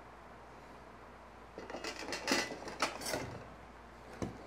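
Metal bar clamp and wooden workpiece being handled on a wooden bench: a run of light metallic clicks and wooden knocks with some scraping, starting about a second and a half in.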